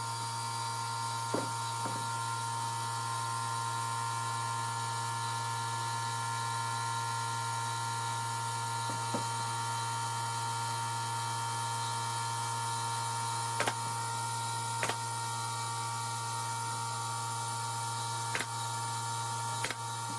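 A steady low hum with a few faint steady tones above it, broken by occasional light clicks or taps.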